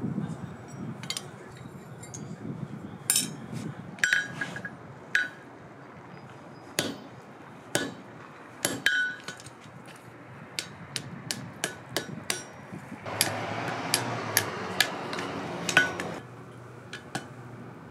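Hand hammer striking a hot wrought-iron bar laid over a hot-cut hardy on the anvil, cutting it through. The blows are sharp and metallic, some with a short ring. They come scattered at first, then in quicker runs of a few a second later on, with a steady rushing noise under them for about three seconds near the end.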